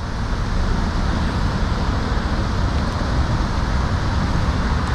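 Steady low rumbling background noise, heaviest in the low end, with no distinct sounds standing out.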